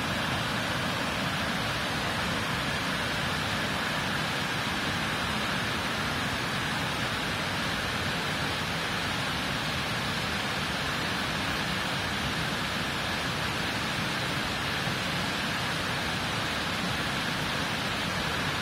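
Steady, unbroken rushing of falling water, with no separate splashes or drops standing out.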